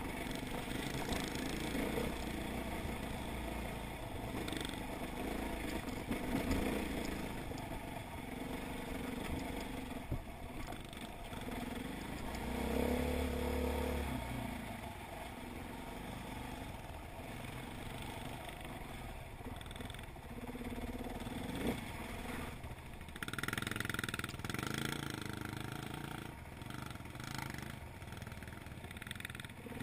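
Enduro dirt bike engine running under a rider on a rocky trail, its revs rising and falling with the throttle, with clatter from the bike over loose stones.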